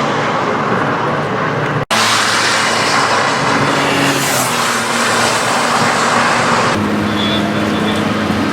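Citroën C1 race cars' small three-cylinder petrol engines running hard at speed, with a steady hiss of spray from the wet track. The sound drops out for an instant just before two seconds in and changes near seven seconds in, as a new engine note takes over.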